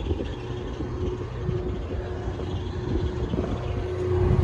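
Steady machine hum of rooftop air-conditioning equipment running: a low drone with a steady higher tone over a rushing noise, growing louder near the end.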